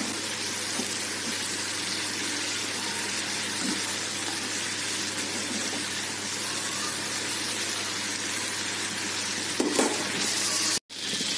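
Sliced ivy gourd (tindora) with green chillies sizzling steadily in oil in a kadhai, salted and cooking on a low flame to soften, with a metal spoon stirring it now and then. The sound cuts out for a moment near the end.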